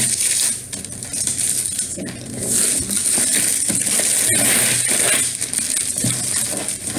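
Gift wrapping paper being torn and crumpled off a cardboard box by hand, a continuous crackling rustle that grows louder about two seconds in.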